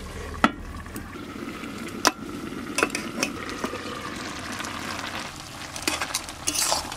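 Vegetable and fish curry simmering and sizzling in an iron wok under a clay lid, with several sharp knocks of the lid and utensil against the pan, the loudest about two seconds in. Near the end a metal spatula stirs and scrapes through the vegetables.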